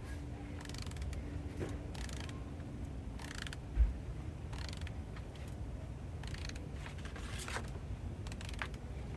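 Torque wrench ratcheting in short, irregular strokes as the cylinder-head stud nuts are drawn down in the first torque pass, at about 42 lb-ft. A single low thump comes about four seconds in.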